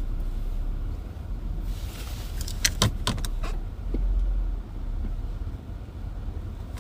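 Car running slowly with a low, steady rumble, heard from inside while pulling in to park. About halfway through come a handful of sharp clicks and rattles.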